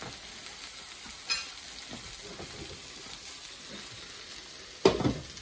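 Sliced onions sizzling in a frying pan on a gas stove as they are sautéed and stirred with a spatula. A sharp knock near the end, the loudest moment, with a fainter click earlier.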